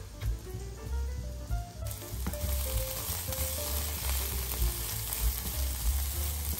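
Diced zucchini sizzling in hot olive oil in a frying pan while being turned with a spatula. The sizzle cuts in abruptly about two seconds in and then holds steady.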